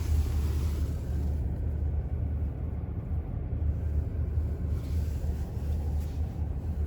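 Steady low rumble of a car driving slowly on a snowy town road, engine and road noise heard from inside the cabin.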